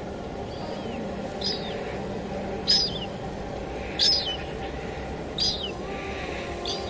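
Steady rain with a bird calling repeatedly over it: five short, high chirps about a second and a half apart, each dropping off quickly at the end.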